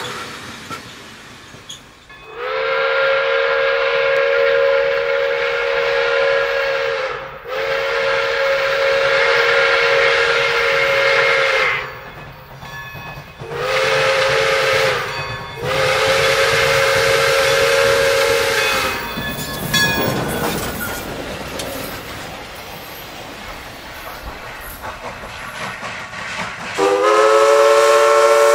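Pere Marquette No. 1225's Nathan six-chime steam whistle blowing the grade-crossing signal: two long blasts, one short and one long. A quieter stretch of train noise follows, then near the end a different three-chime whistle, East Broad Top No. 18's Hancock short-bell, starts to blow.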